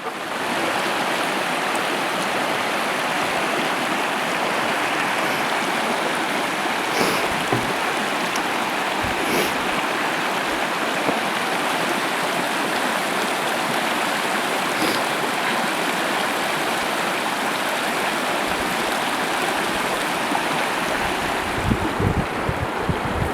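Mountain river rushing steadily over rocks, an even, unbroken wash of water. Near the end come a few low thumps of wind buffeting the microphone.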